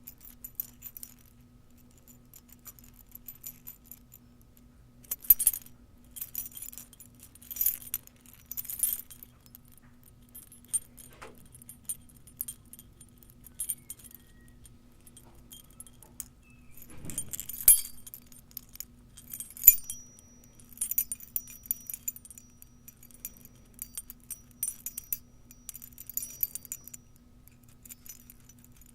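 Metal dog tags on a chain jingling and clinking in irregular shakes separated by pauses. The loudest shakes come about five, eight, eighteen and twenty seconds in, with busier jingling after that. A faint steady low hum sits underneath.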